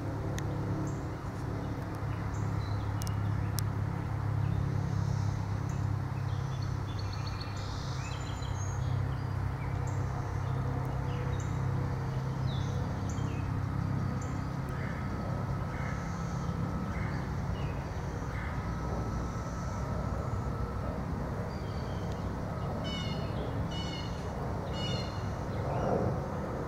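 Outdoor woodland ambience: songbirds chirping and calling, with a quick run of repeated chirps a few seconds before the end, over a steady low hum like distant traffic.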